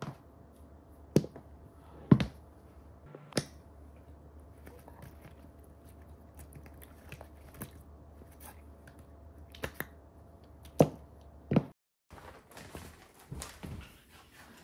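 Faint room hum with a handful of short, sharp clicks and taps, a second or more apart, and a brief stretch of soft rustling near the end.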